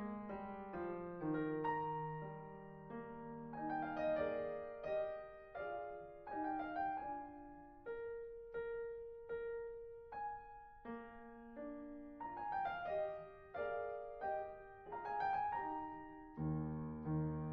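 Background piano music: a slow melody of single notes, each fading after it is struck, with fuller low chords coming in near the end.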